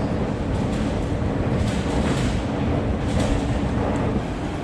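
A passenger train running, a steady low rumble with a few short clacks scattered through it.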